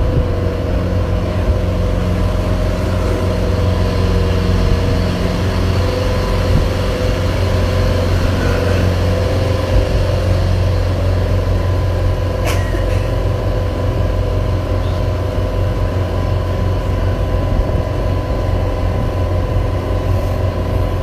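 Water-taxi boat's engine running steadily while under way, heard from on board: a loud low drone with a steady hum above it.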